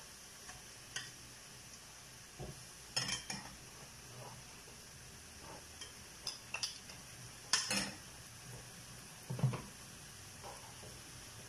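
Pork belly frying in a nonstick pan with a low steady sizzle, while metal tongs clink and scrape against the pan and a plate as pieces are moved in. The loudest clatters come about three, seven and a half, and nine and a half seconds in.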